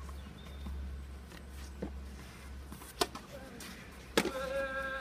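Two sharp knocks of a tennis ball, about three seconds in and again a second later, the second followed by a short held call from a voice near the end.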